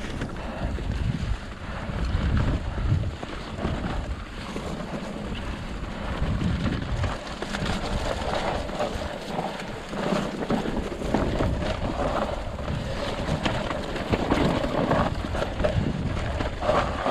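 Mountain bike running down a dirt trail: wind buffeting the microphone, tyres rolling over leaf-covered dirt, and the bike rattling with many short knocks over bumps.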